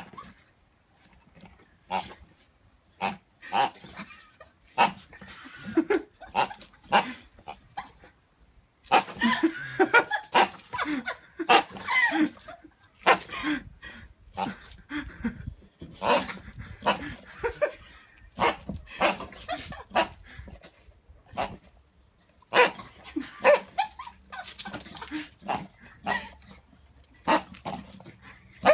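Staffordshire bull terrier giving short, sharp barks at irregular intervals, coming thick and fast about nine to thirteen seconds in and again near the end.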